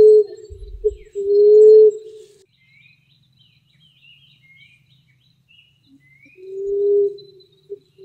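Emerald dove calling: low, soft coos about a second long each, rising slightly, each led by a short note. In a four-second gap between coos, faint high chirps of small birds.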